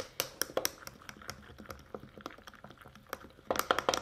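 Metal teaspoon stirring a protein shake in a tall drinking glass, clinking against the glass in quick, uneven taps that come faster and louder near the end.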